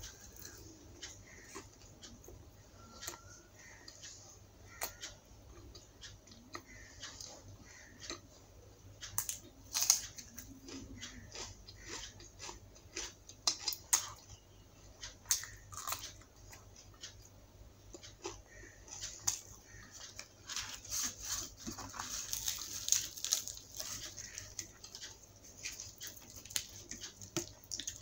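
Close-miked eating by hand: chewing and biting of puri, potato curry and raw green chilli, with wet mouth sounds and many short sharp clicks and crunches. One louder click comes about ten seconds in, and a busier stretch of crunching follows later on.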